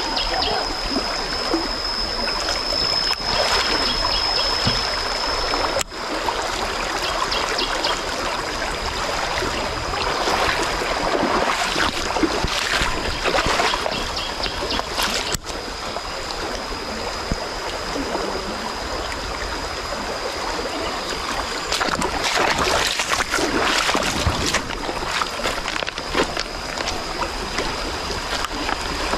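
A stream in high, fast flow, its water rushing steadily with louder bouts of splashing.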